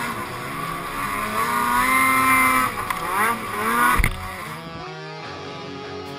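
2013 Ski-Doo Summit X snowmobile's two-stroke engine revving up and down as the sled pulls through deep powder, with a sharp knock about four seconds in.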